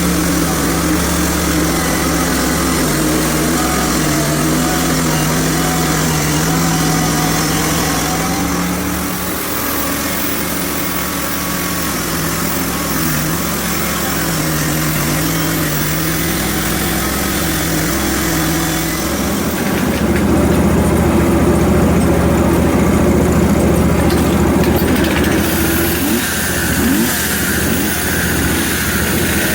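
Portable bandsaw sawmill's gas engine running steadily, with its note shifting and growing louder about twenty seconds in.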